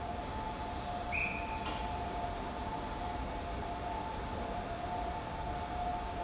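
A steady two-note electronic tone on a station platform, with one short, higher beep about a second in.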